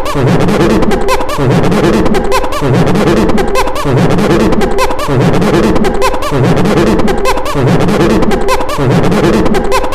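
A man making monkey-like hooting and chattering noises through a voice-changing filter, over a loud pattern that repeats about once a second.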